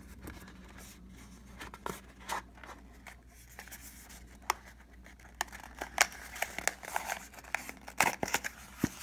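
Cardboard packaging being handled: light clicks, taps and short scrapes as a small cardboard box and card inserts are lifted and pulled out of the earbuds' retail box. Sparse at first, busier from about halfway, with the sharpest knocks a few seconds apart near the end.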